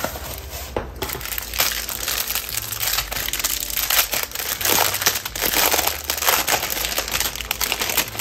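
Clear plastic packaging crinkling and crackling as a bag of small zip-lock bags of diamond-painting drills is opened and handled.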